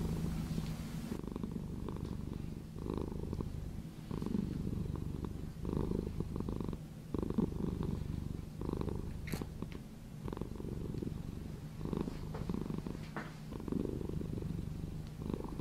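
Domestic cat purring, a low rumble that swells with each breath about every second and a half.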